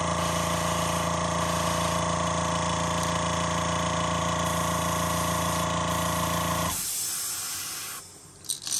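Airbrush air compressor motor running with a steady buzzing hum, shutting off abruptly about seven seconds in; a hiss of air follows, then short spurts of the airbrush spraying near the end.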